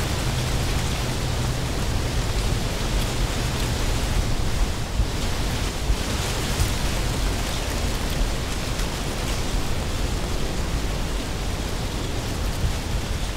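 A steady, even rushing noise with a low rumble beneath it.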